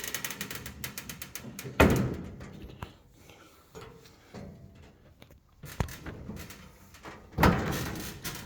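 Sheet-metal panel of an air compressor cabinet being handled and shut: a rattle of small clicks, then two loud metallic thuds with a short ring, about two seconds in and near the end, and a sharp knock between them.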